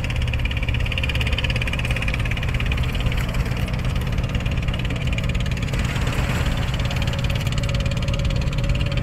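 An engine idling, a steady low drone with a fast, even pulse.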